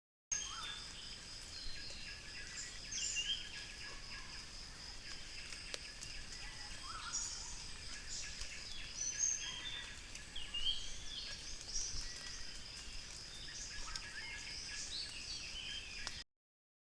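Forest ambience recorded by a trail camera: scattered short bird calls and chirps, some gliding up or down in pitch, over a steady high pulsing tone such as an insect trill.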